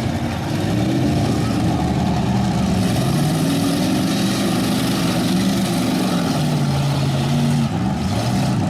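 Several demolition derby cars' engines running and revving at once, their pitches rising and falling as the cars spin and push through mud.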